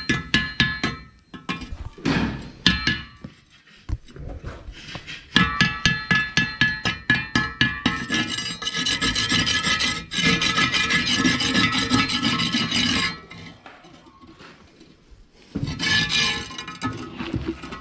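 Repeated hand scraping and rasping strokes on rubber, several a second, coming in bursts with short pauses. This is the sound of roughening or scraping a tractor tyre to prepare it for a patch.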